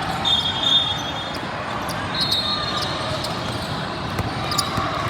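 Basketball bouncing on a gym floor during play, with two short high squeaks, in the first second and about two seconds in, over a steady hall murmur.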